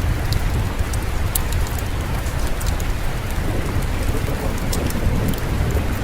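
Steady rain with a low, continuous rumble of distant thunder underneath and scattered sharp little ticks on top.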